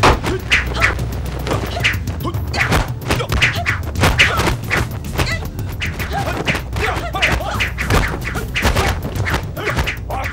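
Kung fu fight sound effects: a rapid run of punches, kicks and thuds with yells, over background music.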